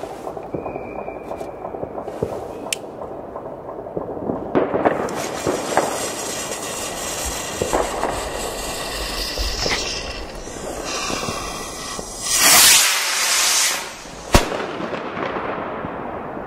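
A firework rocket's fuse sizzles and sprays sparks, then about twelve seconds in the rocket launches with a loud rushing hiss lasting over a second, followed by one sharp bang. Other fireworks crackle and pop throughout.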